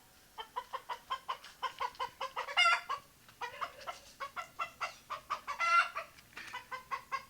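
Rooster clucking in a quick run of short clucks, about four or five a second, broken twice by a louder, longer squawk-like call, about two and a half seconds in and again near six seconds.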